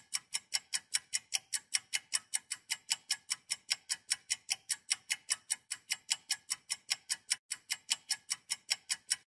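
Ticking countdown-timer sound effect, like a clock: sharp, even ticks at about four a second, stopping just before the end.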